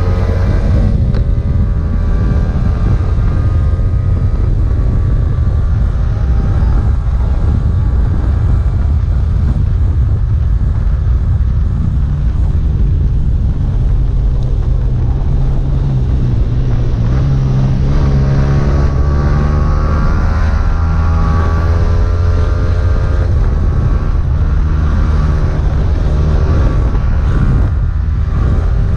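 Yamaha V3 sport bike's engine running under way, with wind and road rush. The engine note drops about a second in, then climbs again past halfway as the bike accelerates, and holds high near the end.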